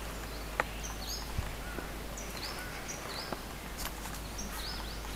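Steady outdoor background hiss with small birds chirping in short, high calls that come in little clusters several times, plus a few faint clicks.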